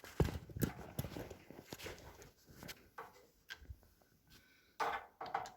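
Scattered small clicks and light knocks of hands working on the water heater's fittings, prying the clip and filter screen loose, with a louder cluster of clicks near the end.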